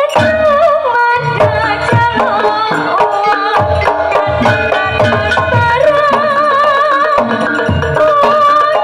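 Live Javanese music: a female sinden singing a wavering melody with vibrato over a Javanese ensemble, with hand-drum strikes keeping the rhythm.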